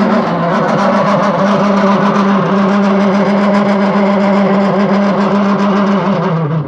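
Consul washing machine's motor and drive running with a loud, steady humming racket and a fast rattle, cutting off near the end. The owner traces the noise to a worn motor pulley.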